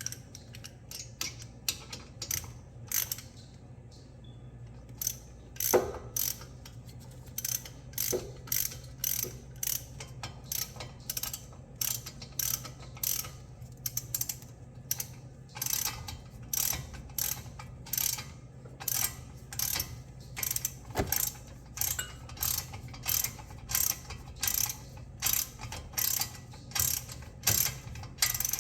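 Hand ratchet wrench clicking as it tightens a brake caliper bolt. The strokes come irregularly at first, then settle into a steady back-and-forth rhythm of a little under two a second about halfway through.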